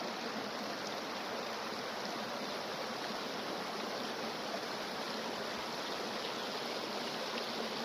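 Steady rushing of a mountain stream, an even unbroken flow of water.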